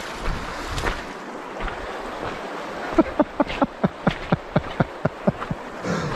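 River water running over a shallow gravel riffle, with wind on the microphone. About three seconds in, a person makes a quick string of short 'huh' sounds, about five a second, lasting a couple of seconds.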